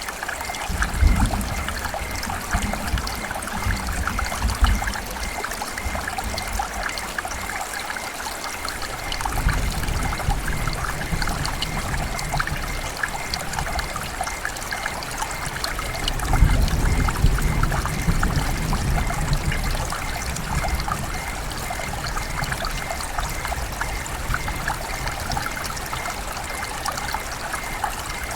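Heavy rain falling steadily, a dense hiss full of fine drop ticks. Low rumbles of distant thunder swell up three times, the strongest about two thirds of the way through.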